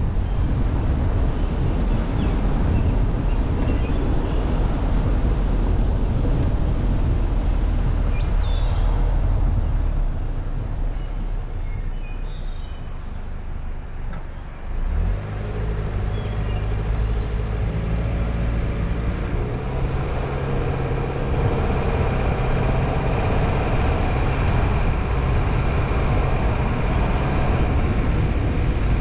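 Car driving on a road, with a steady low rumble of road and tyre noise. About ten seconds in the rumble drops as the car slows, then about halfway through the engine note comes back up as it pulls away and keeps running at speed.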